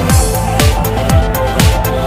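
Electronic dance music with a deep kick drum falling in pitch on each beat, about two beats a second, under sustained synth tones.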